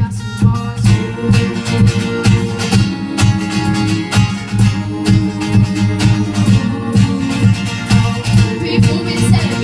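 Acoustic guitar strummed in a steady, even rhythm, chords ringing between the strokes.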